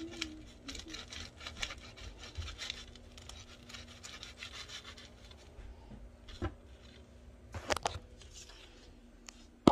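Kitchen knife sawing back and forth through a crisp rolled chimichanga on a plate, a rasping stroke repeated many times. Near the end the sawing gives way to a few separate knocks, the loudest and sharpest at the very end.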